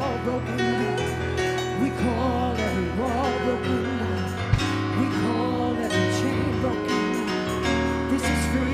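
Live worship band music: voices singing a wavering melody into microphones over steady sustained bass notes and a drum kit.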